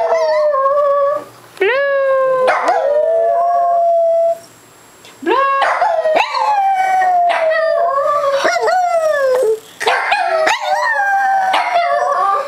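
Shih-tzu howling: a series of drawn-out howls that slide down in pitch, with short breaks between them and a long unbroken howl from about five seconds in.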